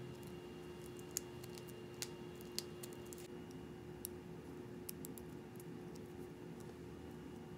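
Sparse small clicks and ticks as excess adhesive vinyl is weeded from a sheet of cut letters, peeled away by hand and picked out with a craft knife tip, over a steady low hum.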